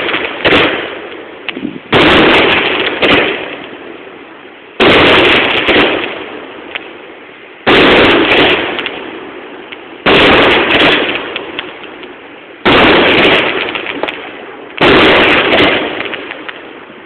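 Fireworks going off in a series: about six loud bangs roughly every two and a half seconds, each dying away in a rumbling echo and crackle before the next.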